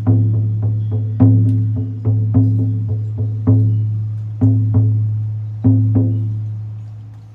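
16-inch deerskin shamanic frame drum on a beechwood frame, struck with a firm beater. About a dozen strokes fall in an uneven rhythm of roughly two a second, each leaving a low ringing tone that carries on between strokes. The last stroke comes near the end and fades out.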